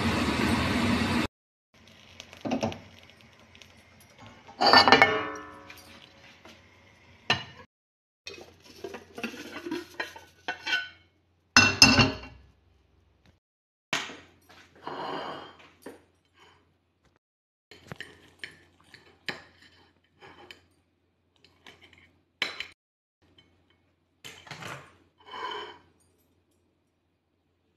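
A steady rushing noise cuts off about a second in. It is followed by scattered clinks, clatters and scrapes of kitchen utensils against pans and dishes, in short separate bursts with pauses between.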